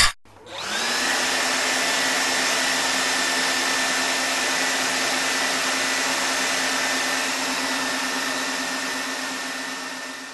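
Night vision power-up sound effect: a short burst, then a steady hiss with a whine that rises briefly and holds at one high pitch over a lower hum, fading out near the end.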